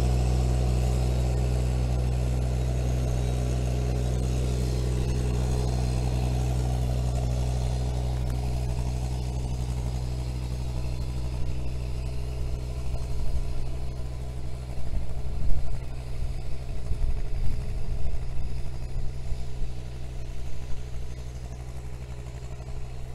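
Mini excavator engine running steadily, clearing snow. In the second half, uneven bumps and clunks come over the engine as the machine works.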